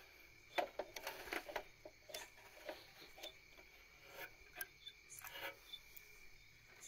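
Irregular small clicks and taps from fingers pressing and handling a water-pump motor starter's contactor and its wiring, with a faint steady chirring of crickets behind.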